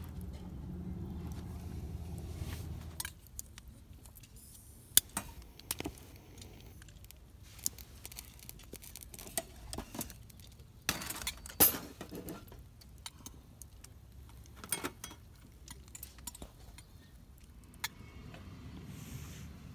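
Stainless-steel utensils and cookware being handled: scattered sharp metallic clinks and clicks, the loudest about five seconds and about twelve seconds in. A low steady rumble runs under the first three seconds.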